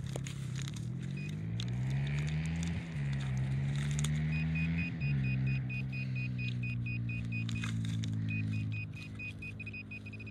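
Handheld metal-detecting pinpointer probe beeping rapidly, about four to five short high beeps a second, as it is worked through the soil of the dig hole to locate a target, with a brief pause about eight seconds in. Under it runs a low droning tone that glides up and down in pitch.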